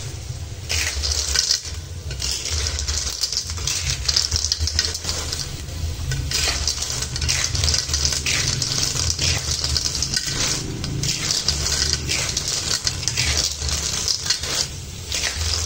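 Sea snail shells clattering and scraping in a wok as they are stirred with a spatula: a continuous jumble of quick hard clicks, over a steady low hum.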